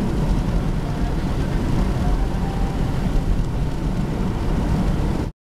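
Steady low rumble of road and wind noise heard from inside a moving van, cutting off suddenly near the end.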